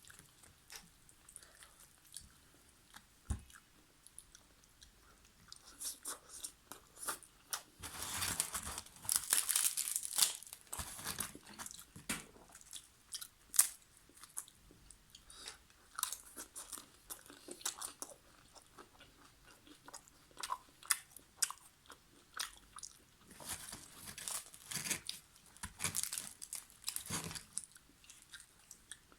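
A person chewing and biting chicken karahi and naan close to the microphone: a steady run of short, crisp mouth clicks and crunches, with a thicker, louder spell of bites about a third of the way in and another near the end.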